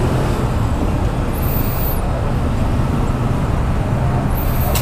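Steady low rumble of road traffic noise, with no distinct events.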